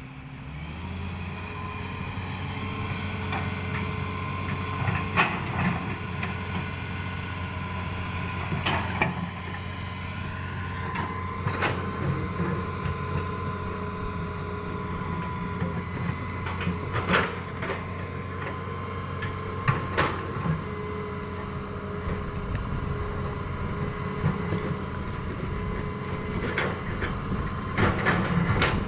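Excavator's diesel engine running steadily after picking up about a second in, with a thin steady whine over it, and sharp knocks and clanks now and then as rocks are loaded onto a truck.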